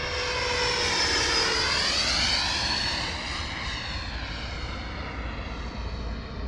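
105 mm electric ducted fan of an HSD F-16 RC jet whining in flight, loudest over the first few seconds, its pitch dipping and then rising again about two seconds in.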